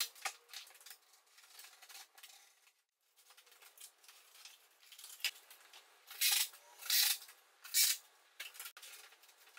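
Wall panel being worked by hand: faint handling knocks and rustles, then three short scraping strokes in quick succession near the end.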